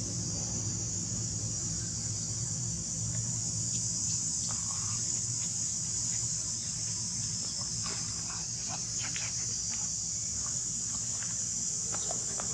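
Steady, high-pitched drone of an insect chorus, with a few short faint squeaks or clicks scattered through the second half.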